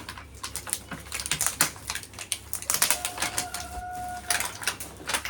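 Gift wrapping paper being crinkled and torn open in a quick run of crackles. About three seconds in, a steady tone sounds for just over a second.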